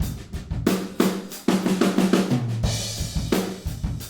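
Recorded acoustic drum kit playing a groove of kick, snare and hi-hat, with the hi-hat's close microphone muted so that the hi-hat is heard only through the overhead microphones. Just after two seconds in, a lower drum rings out, followed by a cymbal wash lasting under a second.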